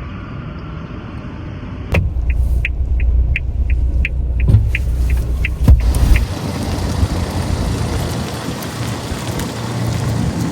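A car's engine running with a low rumble. For about four seconds there is a run of evenly spaced ticks, about three a second.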